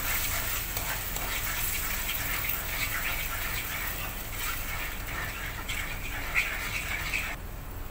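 A wooden spoon stirring and scraping round a non-stick kadai of bubbling thin coconut milk, ghee and sugar, with a simmering sizzle, while the sugar dissolves. The stirring stops about seven and a half seconds in.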